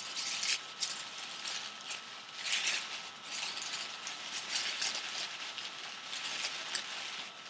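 Packaging being handled and opened by hand: irregular scratching, rustling and crinkling of cardboard and plastic, with several louder scrapes along the way.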